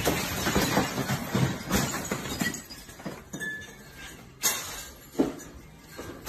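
Glass bottles and shelving rattling and clinking in an earthquake. A dense clatter of knocks comes first, then sparser knocks with a sharp louder hit about four and a half seconds in.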